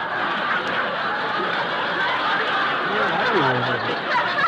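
Studio audience laughing steadily at a punchline.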